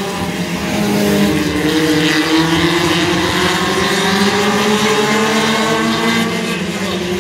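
Pack of winged NEMA Lites race cars racing on a paved oval, several engines running hard at once, their pitches gliding upward as the cars accelerate out of the turn.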